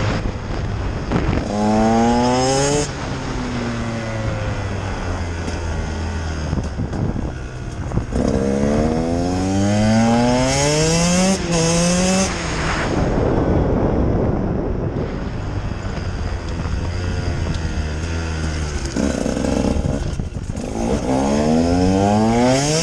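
Husqvarna TE 150's 150 cc two-stroke single-cylinder engine revving hard under acceleration in three spells, its pitch climbing steeply and breaking off at each gear change, then falling back to a low steady run between them.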